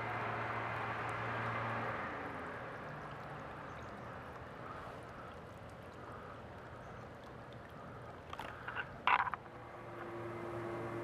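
Water bubbling and trickling from a glazed ceramic urn fountain onto river stones, a soft steady wash over a faint low hum, with a brief sharp sound about nine seconds in.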